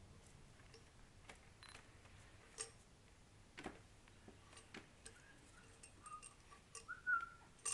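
Faint, scattered clicks and small jingles of a toy tambourine being handled and tapped by a baby, a few irregular taps spaced about a second apart, coming more often near the end.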